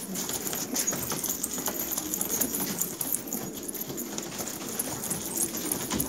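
Domestic pigeons cooing, with short bursts of wing flapping among them.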